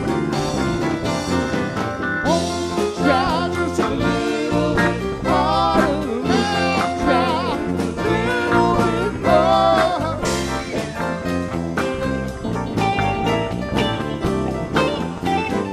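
Live country-rock band playing: electric bass, drums and guitars, with a gliding, wavering lead line, from the pedal steel or a voice, over the middle of the passage.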